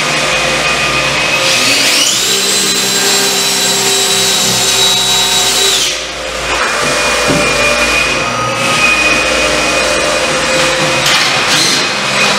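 Cordless drill boring a pilot hole into the wall above a door frame. The motor spins up about one and a half seconds in, runs steadily for about four seconds and stops. A steady noise continues around it, and a short burst of drilling comes near the end.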